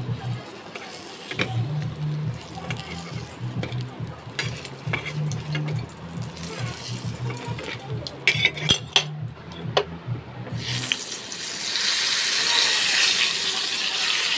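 Kitchen sounds over low background music: a metal spatula clicks and scrapes against an iron wok of frying pointed gourd, with a quick run of clicks a little after the middle. Near the end a steady hiss sets in, of hot oil sizzling or water running.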